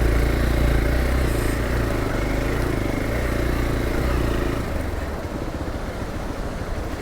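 Hero Xpulse 200 4V's single-cylinder engine running steadily while riding, then settling to a lower, uneven beat after about four and a half seconds as the throttle eases off.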